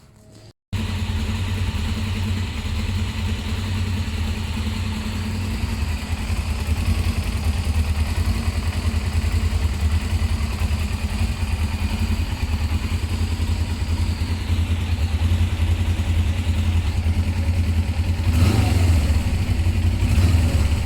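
Suzuki GS500 air-cooled parallel-twin engine running at a steady speed, cutting in suddenly about a second in.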